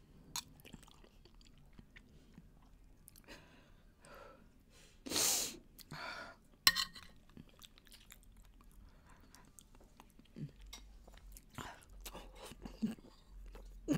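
Close-up mouth sounds of someone eating soft fruit jelly from a metal spoon: quiet chewing and smacking with small spoon clicks, and a short breathy hiss about five seconds in.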